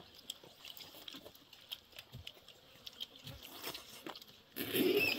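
Small clicks and rustles of fingers scooping boiled rice from an enamel plate, with chewing. About four and a half seconds in, a brief louder, rough sound breaks in.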